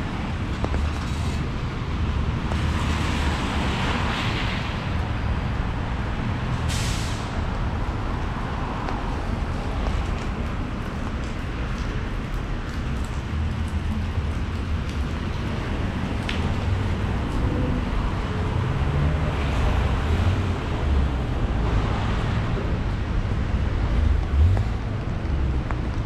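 Traffic on a rain-wet city street: passing vehicles with their tyres hissing on wet pavement, swelling and fading, over a steady low rumble. A short, sharp hiss comes about seven seconds in.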